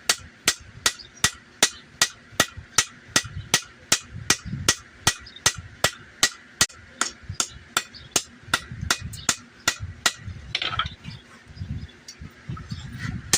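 Blacksmith's hammer striking a steel sword blade on an anvil at about three blows a second, forging the bevels. The blows stop about ten seconds in, and a few more come near the end.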